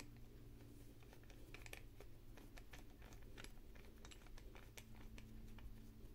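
Faint, irregular small clicks and ticks, several a second, as a small metal screw knob is turned by hand into the body of a pair of 12x42 binoculars.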